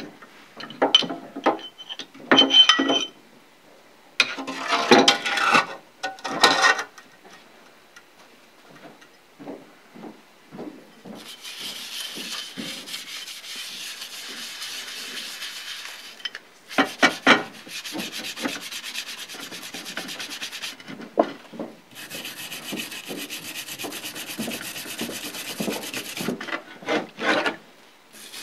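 Scraping and scrubbing a wet cast-aluminium rotary-table part in degreaser. In the first several seconds a pointed scraper scrapes and clicks against the metal. After that come long spells of steady bristle scrubbing with a toothbrush and a small wire brush.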